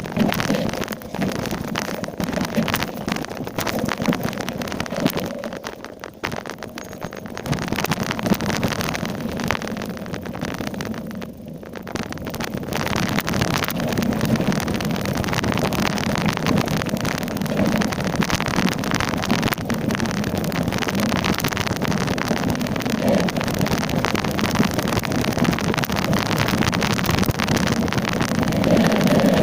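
Mountain bike descending a rough downhill trail at speed: steady wind rushing over the microphone with dense rattling and tyre noise. There is a brief dip in loudness about six seconds in and again about eleven seconds in.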